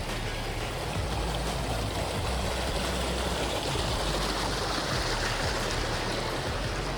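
Steady rush of running water from a mountain stream, with a low rumble underneath.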